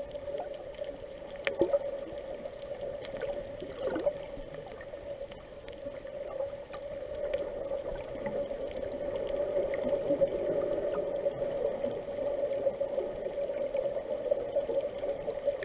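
Muffled underwater sound heard through a submerged camera: water moving with scattered crackling clicks over a steady hum.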